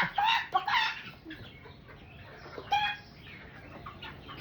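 Chicken clucking: a quick run of short clucks for about the first second, then quieter, with one louder call nearly three seconds in.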